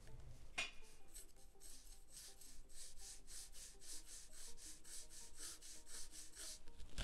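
Pencil lead scratching on drawing paper in quick, even back-and-forth strokes, about four a second, as a shape is sketched in.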